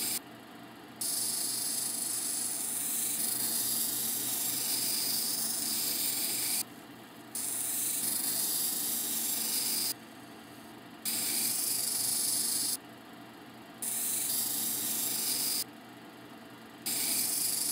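A tiger eye cabochon on a dop stick hissing against a wet, spinning diamond wheel of a cabbing machine, in fine-grit pre-polishing. The stone is pressed on for strokes of about two to five seconds and lifted off for about a second between them, over the steady hum of the machine's motor.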